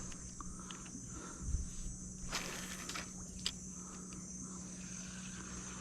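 Insects in the creek-side trees making a steady high buzz, with a few light knocks and a brief rustle about two and a half seconds in.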